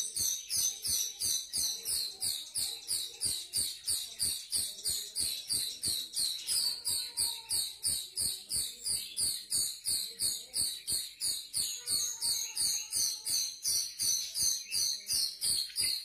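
Grosbeak starling (rio-rio) calls: short, high chirps repeated very evenly, about three or four a second. It is looped as a lure recording to draw wild or young birds into calling.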